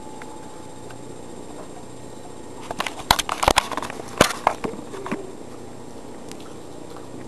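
Beagle gnawing on a dental chew bone, a cluster of sharp clicks and crunches about halfway through.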